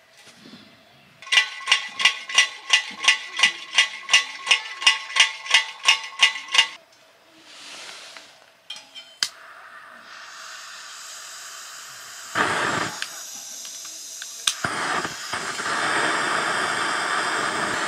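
A compact camping heater being pumped and lit: about nineteen quick, even, squeaky pump strokes, three or four a second, then a sharp click and a hiss starting around ten seconds in. From about fifteen seconds on the lit burner runs with a loud, steady hiss.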